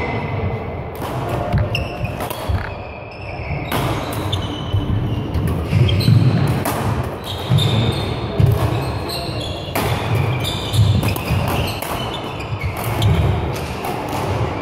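Badminton play echoing in a large sports hall: sharp cracks of rackets hitting shuttlecocks, short squeaks of court shoes on the floor, and low thuds of footsteps.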